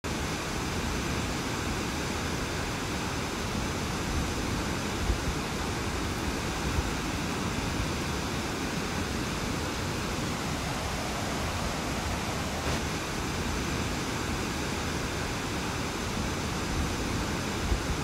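Waterfall rushing: a steady, dense wash of falling water, starting abruptly.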